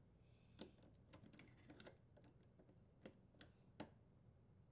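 Faint, scattered small metal clicks of slip-joint pliers tightening a strain relief nut in a dishwasher's sheet-metal junction box, about seven over the few seconds.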